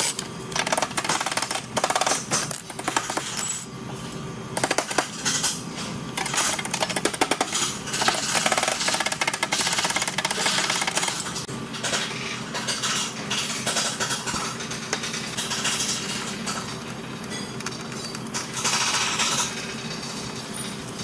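Irregular, rapid metallic clicking and clattering over a faint steady hum.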